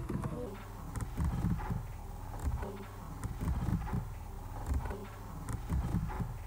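EVP recording from an After Life ghost box played back slowed down: low, garbled, irregular pulses of sound with no clear words.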